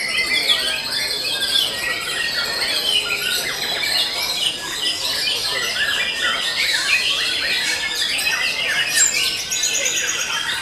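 Caged white-rumped shamas singing in a dense, unbroken chorus of overlapping whistles, trills and chattering calls, many birds at once.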